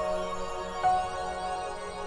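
Soft background music: gentle sustained notes, with a new note coming in just under a second in.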